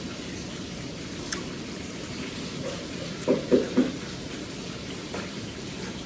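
Steady rain hiss, with three quick low knocks a little past the middle.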